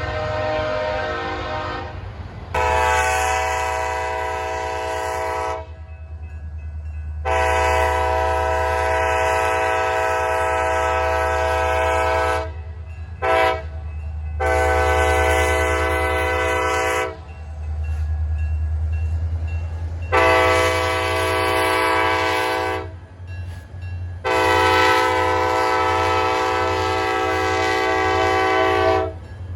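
Locomotive air horn sounding the grade-crossing signal: two long blasts, a short one and a long one, then again a long, a short and a long, over the low rumble of the locomotive.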